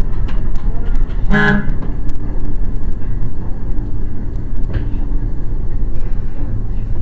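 Steady engine and road rumble of a moving bus, with one short horn toot about a second and a half in.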